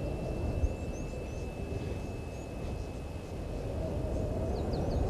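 Outdoor ambience at a waterhole: a low, uneven rumbling noise, a steady high-pitched tone, and short bird chirps, a cluster of them near the end.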